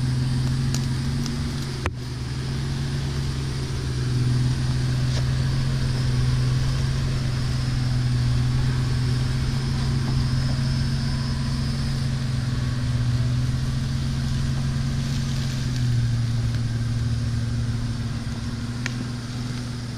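Jeep Wrangler engine running low and steady as it crawls over tree roots on a dirt trail, the revs swelling slightly a couple of times. A sharp click about two seconds in.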